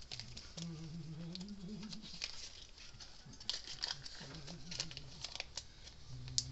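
Rustling, crinkling and small irregular clicks of a resistor kit's paper-taped resistors being handled and pulled free, with a faint low hum twice.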